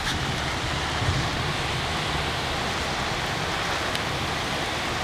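Heavy rain pouring down steadily, a dense even hiss with a few faint drop ticks.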